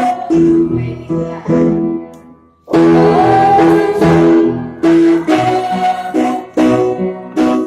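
Music led by strummed guitar chords, each chord struck and left to ring, with a brief near-pause about two and a half seconds in before the next loud chord.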